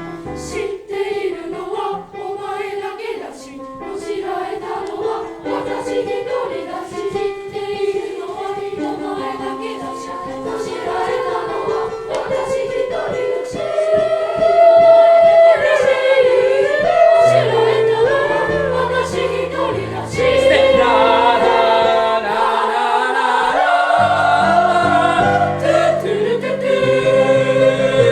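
A school class choir singing a song in unison to an instrumental keyboard accompaniment, growing louder about halfway through.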